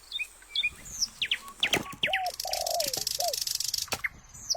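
Several birds calling, with quick high chirps and repeated short, hooked low calls. A dense, pulsing rasp joins in for about a second and a half near the middle, and a few sharp knocks sound.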